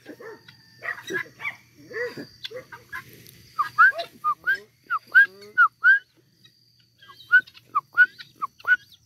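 A flock of helmeted guineafowl calling: a run of short, harsh hooked notes, several a second, with a brief lull a little past the middle before the calling picks up again.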